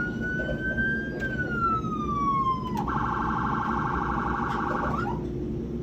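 Fire truck siren: a slow wail that rises, then falls, then switches to a fast warble that cuts off about five seconds in.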